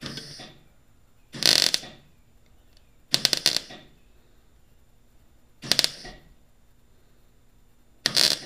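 Miller MIG welder arc fired in five short crackling bursts of about half a second each, a second or two apart. The trigger is clicked on and off to fill a hole burned through the frame tubing.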